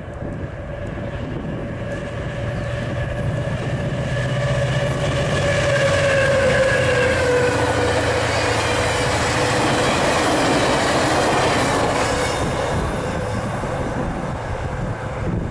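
A VIA Rail passenger train led by two EMD F40PH diesel locomotives passes close at about 90 km/h: the locomotives' sound drops in pitch as they go by, then the stainless-steel passenger cars roll past on the rails, the noise fading near the end.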